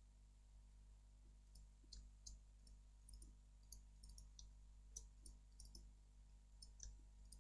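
Faint computer mouse clicks, a couple of dozen short clicks at irregular intervals, over near-silent room tone.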